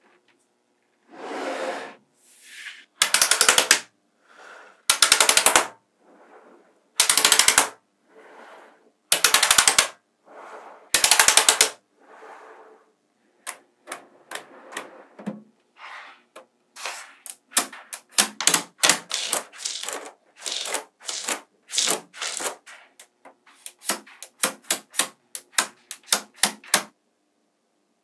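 Small metal magnetic balls clacking against each other as sheets of them are handled and snapped together. First come about six short rattling bursts of rapid clicks, then from about halfway many quick, sharp single clicks.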